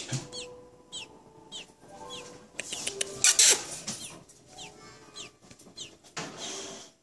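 Baby robin nestling peeping: short falling chirps, about two a second, with a brief burst of noise about three seconds in.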